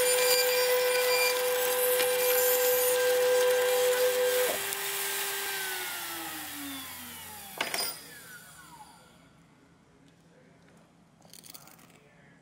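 CNC spindle running steadily with its endmill in a pile of potato chips, then switched off about four and a half seconds in and spinning down, its whine falling in pitch. A sharp click comes just before the eight-second mark, after which only faint sound remains.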